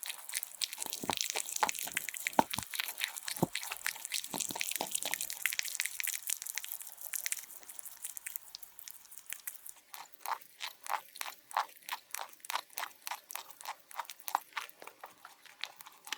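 A rabbit chewing food close up: crisp, irregular crunching bites, settling from about ten seconds in into a steady chewing rhythm of about three to four crunches a second.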